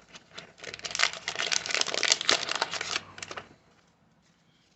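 A pack of baseball cards being opened and handled: rapid crinkling and clicking of wrapper and cards, stopping about three and a half seconds in.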